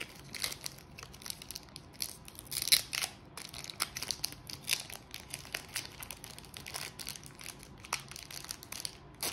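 Foil wrapper of a Pokémon booster pack crinkling and tearing as it is worked open by hand: a run of irregular crackles, the loudest about three seconds in.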